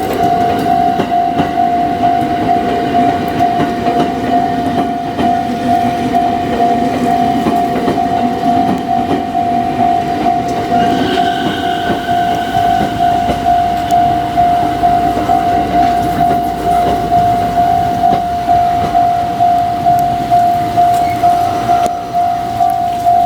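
Japanese railway level-crossing alarm ringing in a steady, even rhythm, over the low rumble of a Yokosuka Line electric train that fades about halfway through.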